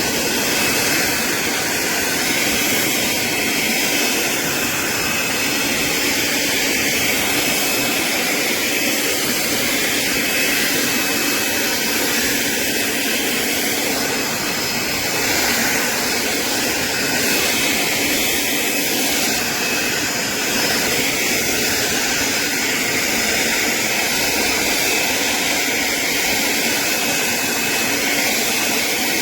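Greenworks 40V brushless cordless push mower running steadily, its electric motor and spinning blade making a continuous whirring hum as it cuts grass.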